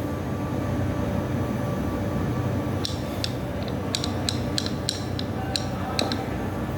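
A steady machine hum, with a run of about a dozen light, sharp clicks in the second half, like small metal parts or tools being handled.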